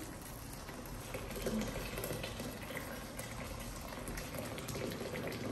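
Freshly boiled water poured from a kettle in a steady stream into a stainless steel pot of dried sea cucumbers, splashing onto them as the pot fills.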